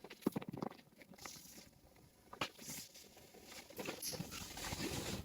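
Faint, irregular light taps and rustling of people moving about, footsteps and handling, growing busier in the second half.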